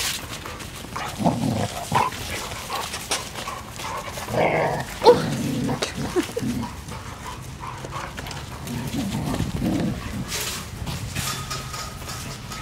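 Two dogs play-wrestling: irregular short play growls and grunts, with the loudest burst about five seconds in.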